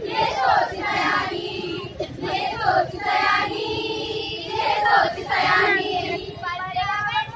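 Group of young women singing a song together without accompaniment, with several long held notes.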